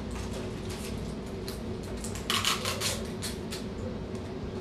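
Plastic dipping-sauce cups being picked up and handled: scattered soft clicks, and a short crinkly rustle a little past halfway.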